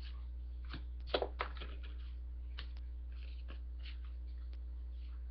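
Trading cards being handled and slid one behind another: a few faint clicks and slides, two slightly louder ones a little after a second in, over a steady low electrical hum.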